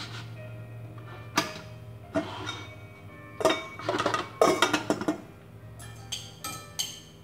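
Soft background music under kitchen clatter: scattered knocks and clinks of dishes and pots through the first five seconds, then quick light clinks of long metal chopsticks against a glass mixing bowl as meat is tossed in its marinade.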